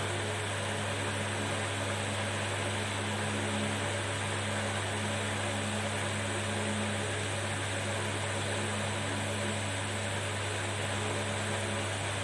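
Hot air rework station blowing steadily over a phone's charging connector: an even airy hiss with a low steady hum, heating the connector to melt its solder and seat it on the board.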